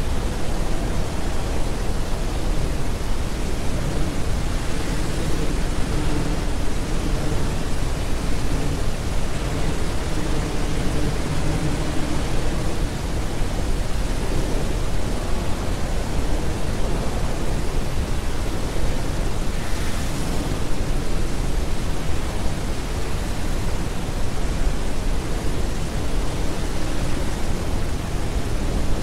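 Loud, steady wash of dense noise, like static, heaviest in the low end, with faint drifting low tones under it in the first half.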